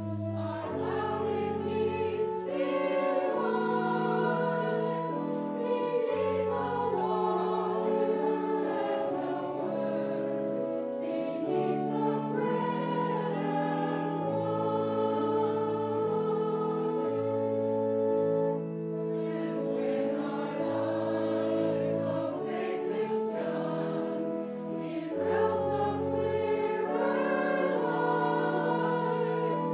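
A hymn sung by many voices together over sustained, steady accompaniment chords with a moving bass line.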